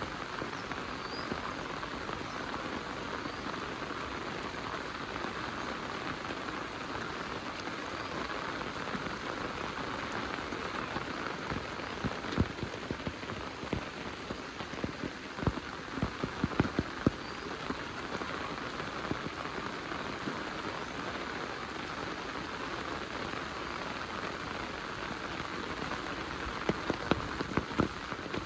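Heavy rain falling steadily, with scattered sharper taps standing out, mostly in the middle and near the end.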